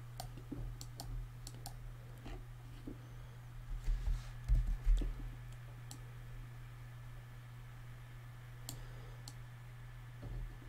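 Sparse, faint clicks of a computer mouse and keyboard, with a few dull knocks about halfway through and a steady low hum underneath.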